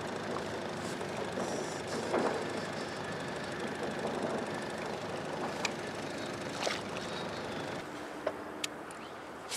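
Small Evinrude outboard motor idling steadily, with a few sharp clicks in the second half.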